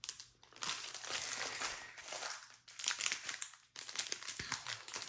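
Small plastic bags of diamond-painting drills crinkling and rustling as they are handled, in several bursts with short pauses.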